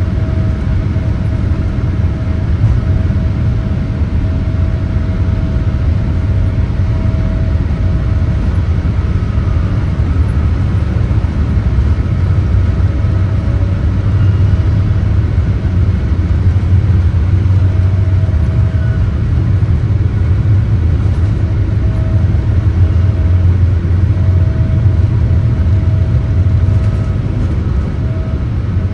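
Cabin noise of a Boeing 787-8 Dreamliner during takeoff: a loud, steady, deep rumble of the engines and airflow, with a faint thin whine that fades in and out.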